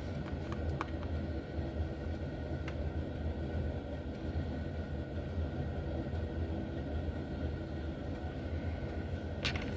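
Steady low rumble of background noise, with a few faint small clicks and a short scratchy sound near the end from handling tiny slot-car parts on the workbench.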